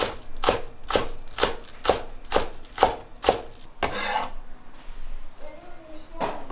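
Cleaver chopping green onions on a wooden cutting board, about two sharp strokes a second for roughly the first four seconds, then the blade scraping across the board.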